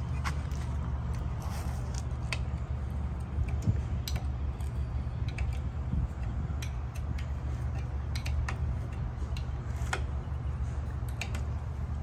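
Scattered metallic clicks and clinks, as of hand tools handled on a diesel engine, over a steady low hum.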